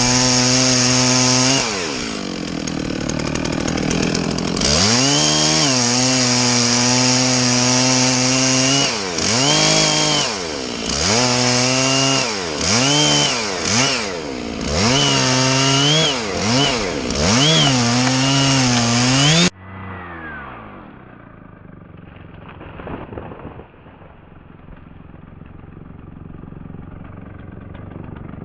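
Chainsaw running at high revs while cutting, its pitch sagging and recovering again and again under load. It cuts off abruptly about two-thirds of the way through, leaving much quieter background noise with a brief knock a few seconds later.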